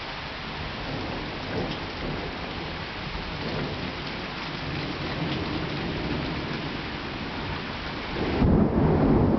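Steady rain falling during a summer thunderstorm, with thunder rumbling underneath; a louder, deep roll of thunder sets in about eight and a half seconds in.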